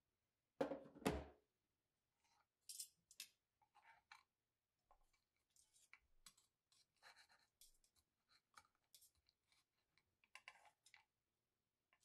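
Two thumps near the start, then a table knife cutting crisp bacon on a wooden cutting board in short scraping, crackling strokes, with light clicks of metal tongs.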